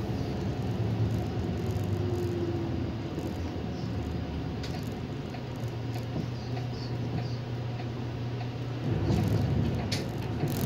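Inside a city bus: its engine hum and road noise as the bus slows toward an intersection, with light clicks and rattles from the cabin fittings. The low rumble grows louder about nine seconds in.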